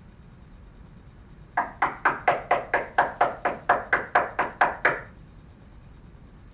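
Rapid knocking on a door: about fifteen quick knocks, roughly four a second, lasting about three and a half seconds and starting a second and a half in.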